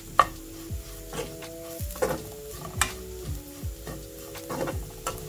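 Steel spoon scraping and knocking against a nonstick pan while stirring grated coconut and shallots frying in oil, a sharp click every half second or so. Soft background music of held notes runs underneath.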